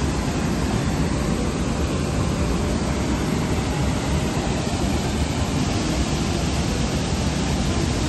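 Steady rushing of river water pouring over a low concrete weir.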